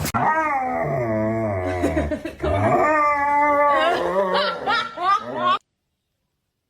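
A dog howling in long, wavering calls, then a quick run of shorter yips that cuts off abruptly into silence.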